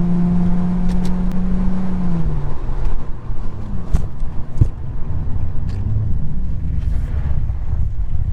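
Infiniti G37's 3.7-litre V6 engine running at a steady drone under way, then the revs drop about two seconds in. Low engine and road rumble follows, with two sharp clicks.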